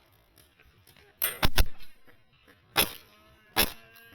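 Shots from an HPA-powered airsoft M4 (Wolverine MTW) fired in semi-auto: a quick group of three sharp clacks about a second in, then two more single shots spaced a little under a second apart.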